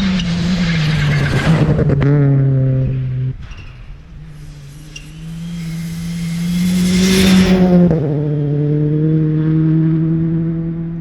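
Drift car's engine held at high revs under wheelspin, with a hiss of tyres and spray over it. It eases off about three seconds in, then builds back up and holds high revs again.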